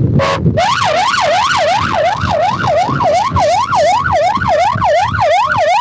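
Police siren on the patrol boat sounding a fast yelp, its pitch sweeping up and down about three times a second. It starts about half a second in, after a short blip.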